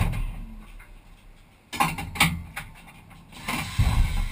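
A Commodore V8 Supercar's engine being switched off, its sound dying away over about a second. This is followed by a few sharp clicks and knocks inside the cabin and a louder rumbling stretch near the end.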